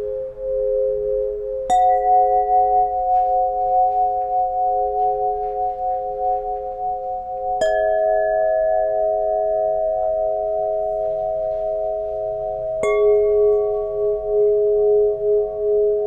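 Solfeggio tuning pipes struck one after another, three sharp pings a few seconds apart. Each new pure tone rings on and layers over the ones still sounding.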